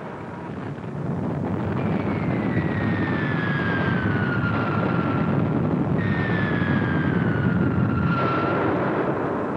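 Air-raid sound: a heavy, steady rumble of aircraft and explosions, with two bomb whistles falling in pitch, each lasting about three seconds, the second starting about six seconds in.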